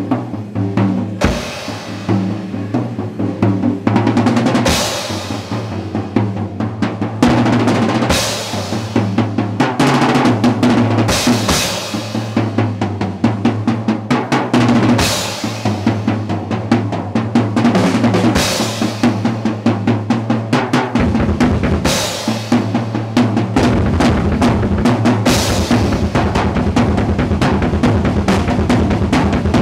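Acoustic drum kit played solo: fast rolls across snare and toms, with a cymbal crash about every three and a half seconds. About 24 s in, the playing settles into a fast, even stream of strokes heavy in the low end.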